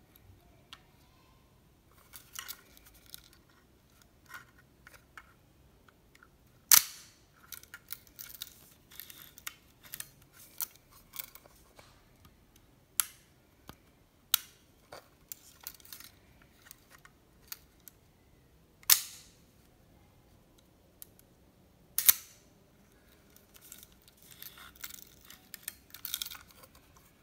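Leica IIIf rangefinder camera worked by hand: many small mechanical clicks as its knob and shutter speed dial are turned, with three much louder sharp snaps of the shutter firing, about seven, nineteen and twenty-two seconds in.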